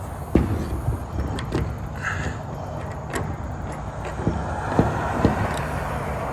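A hammer knocking on a trailer's steel door hinge: about seven irregular sharp strikes, a few of them louder about a second in and near five seconds. Under it runs the steady low rumble of an idling vehicle engine.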